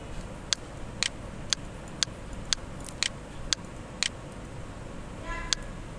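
Regular ticking, about two ticks a second, over a low steady hiss.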